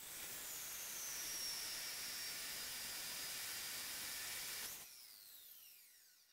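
Metal-cutting chop saw cutting through steel: a steady hissing grind with a high whine that sinks slowly in pitch. About five seconds in, the cut ends and the blade spins down, its whine falling away.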